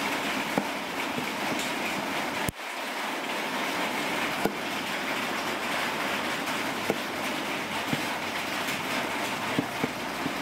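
A cleaver shaving a broccoli stalk on a wooden cutting board, the blade knocking sharply on the board a few times, over a steady hiss. The hiss briefly cuts out about two and a half seconds in.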